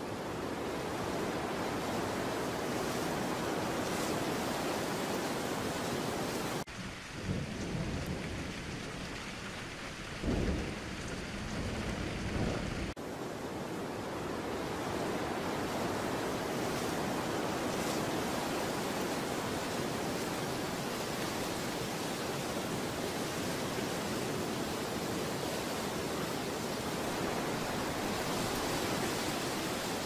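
Steady rushing of falling water. About seven seconds in it cuts for about six seconds to quieter rain with two low rumbles of thunder, then the steady rush of water returns.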